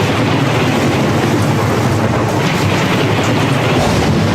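A steady rushing rumble, a thunderstorm sound effect of rolling thunder and rain, played over an AM radio broadcast.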